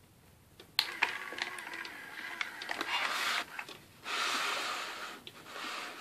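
Handling of a FurReal Squawkers McCaw robot parrot toy: two sharp clicks about a second in as the switch in its zippered back panel is worked, then rustling and knocking, and a loud harsh rasp lasting about a second near the end.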